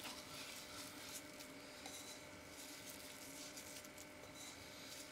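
Near silence: faint, steady room tone with a light hum.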